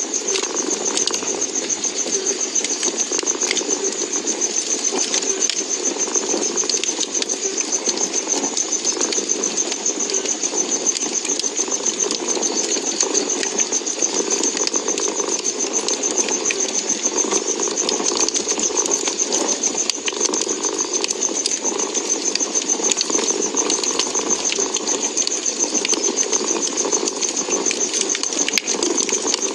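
A cat purring steadily, close up, over a wood fire crackling with scattered sharp pops, and a constant high-pitched buzz.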